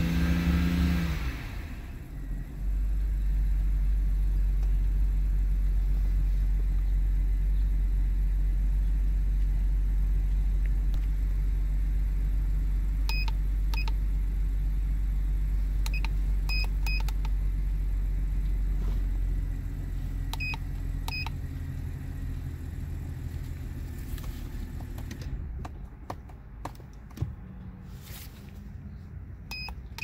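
BMW N52 straight-six engine idling after a misfire repair, heard from inside the cabin as a steady low hum that eases in the last third. The scan tool's keypad beeps several times in short pairs from about halfway through.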